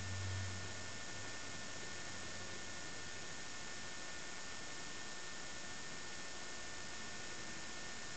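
Steady hiss of room tone and recording noise with two faint, steady high tones. A low hum swells briefly about half a second in, then fades away within the next few seconds.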